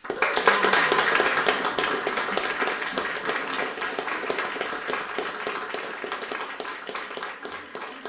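Audience applauding: clapping breaks out suddenly, is loudest in the first couple of seconds, and slowly thins out.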